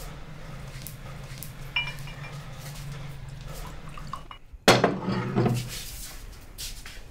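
A glass clinks with a short ring about two seconds in. Just before five seconds comes the loudest sound, about a second of liquor being poured from a bottle into a glass. A low steady hum runs underneath and stops just before the pour.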